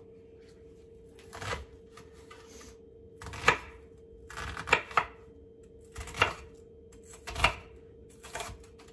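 Chef's knife chopping an onion on a wooden cutting board: about seven separate knife strikes on the board, roughly a second apart, some with a short scrape. A steady faint hum runs underneath.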